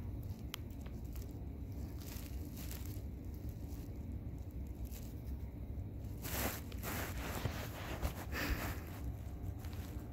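Soft rustling and crinkling in a few short bursts, loudest from about six to nine seconds in, over a steady low rumble.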